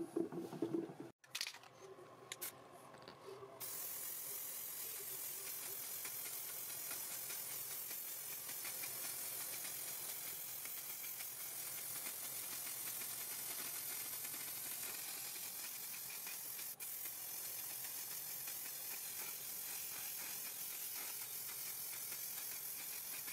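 Aerosol spray can of lacquer spraying a continuous hiss, starting a few seconds in after a few short clicks and rattles, with one momentary break about two-thirds of the way through.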